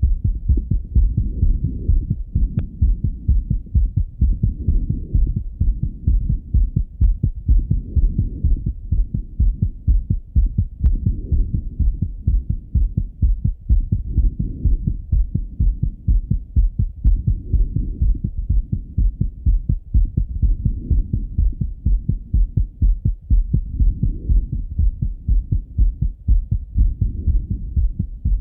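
A man's heartbeat heard through a Littmann stethoscope: rapid, steady thumping, beating fast after a run. The beats swell and fade in strength about every three seconds.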